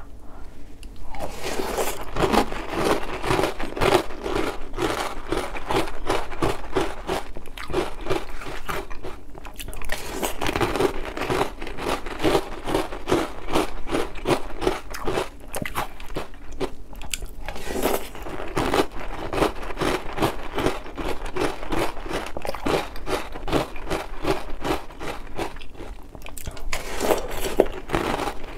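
Oreo O's cereal with milk being chewed: rapid, crisp crunches several times a second, steadily.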